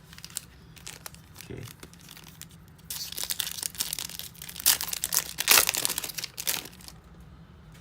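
Foil wrapper of a trading card pack being torn open and crinkled, a dense crackling that starts about three seconds in, is loudest toward the end and stops shortly before the end.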